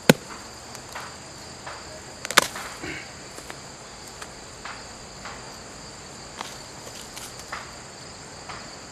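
Rotten wood of a decaying stump being pried and broken apart by hand, giving a sharp crack right at the start and another crack with a short cluster of snaps about two and a half seconds in, with scattered small cracks and crumbling between them.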